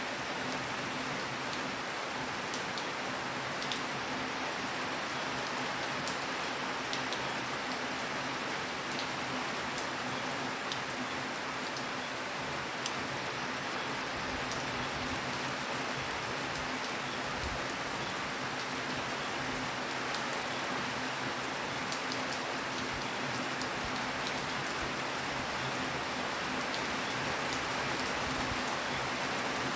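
Steady rain falling, with scattered individual drops ticking sharply on a nearby surface.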